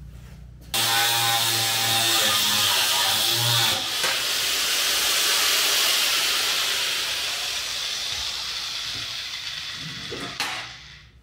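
A loud, steady hiss that starts suddenly about a second in and fades away near the end, with a hum under it for the first few seconds.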